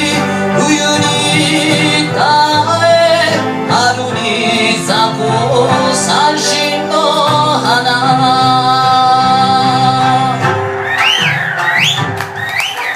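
Live Okinawan song performance: a male singer holds long, wavering notes over the band's accompaniment. About ten seconds in, high whistles start sliding up and down over the music.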